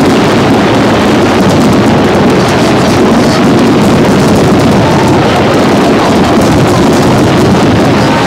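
Fireworks display barrage: shells bursting so thickly that the bangs run together into one loud, continuous rumble with crackle, without pauses.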